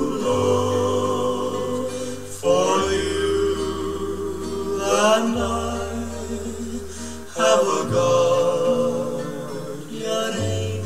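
A man singing a slow ballad in long held notes over a backing track with a sustained low bass, the notes changing every couple of seconds.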